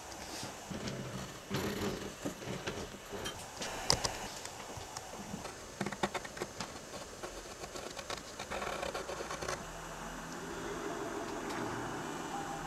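Pencil scratching and tapping on paper in close-up: irregular small clicks and strokes. From about ten seconds in, a steady pitched, fast-repeating mechanical drone joins.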